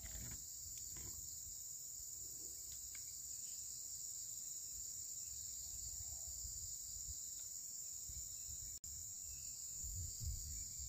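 Insects droning steadily at a high pitch, with a faint low rumble underneath.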